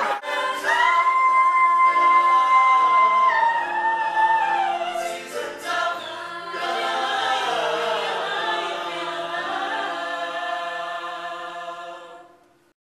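A group of voices singing in harmony, with long held notes and changing chords. The singing fades out near the end.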